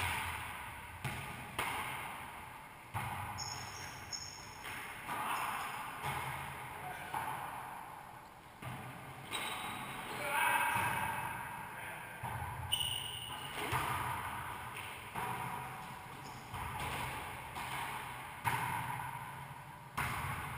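Wallyball rally: a volleyball smacked by hands and rebounding off the court walls and floor, a string of sharp hits about every one to two seconds. Each hit rings and fades in the hard-walled racquetball court.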